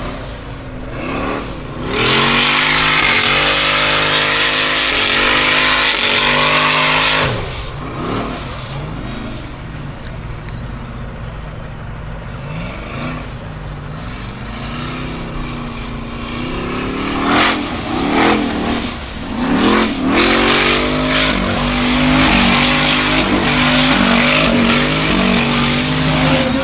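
Formula Offroad buggy's engine revving hard and rising and falling in pitch as it climbs a steep gravel slope, with the tyres spinning and throwing gravel. There is a long loud full-throttle stretch from about two seconds in to about seven seconds, then repeated hard revving near the end.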